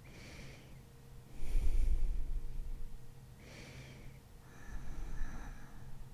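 A woman breathing slowly in her sleep, four breaths in all. The loudest, about a second and a half in, comes out as a short snore.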